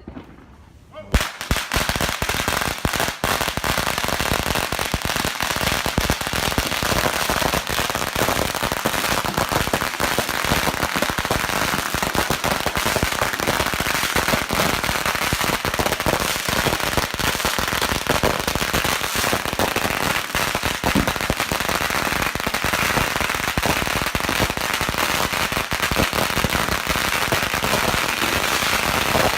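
A dense barrage of fireworks and firecrackers, countless bangs and crackles overlapping without a break, starting about a second in.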